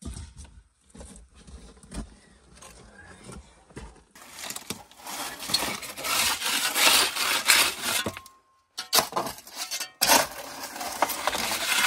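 Shovel scraping and digging into rocky, gravelly soil, stones clinking against the blade. Light scrapes at first, then steady heavier scraping from about four seconds in, with a short break a little after eight seconds.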